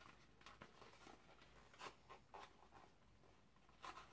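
Near silence with a few faint, soft clicks and rustles of small objects being handled.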